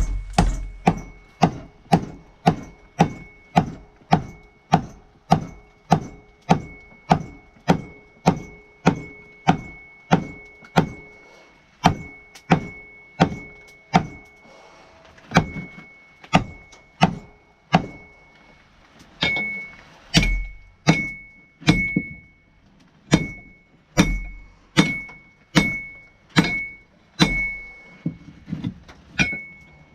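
Hand hammer striking hot steel on an anvil, forging a wrench into a tomahawk head: steady blows about two a second, each with a short metallic ring. There is a brief pause a little past halfway, after which the blows land with a heavier thud.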